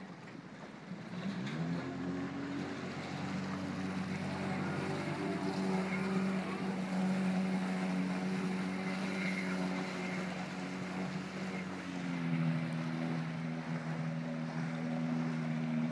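Jet ski engine speeding up about a second and a half in, then running steadily at a higher pitch as the craft pulls away across the water; its pitch shifts slightly near the end.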